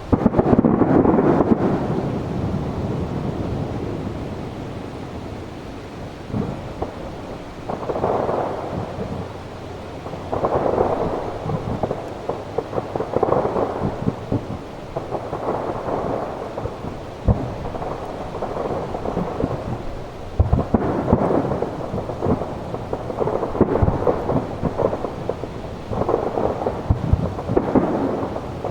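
Aerial firework shells bursting: a heavy boom right at the start, then more booms every two to three seconds with a rolling rumble between them, and sharp cracks and crackle in the gaps.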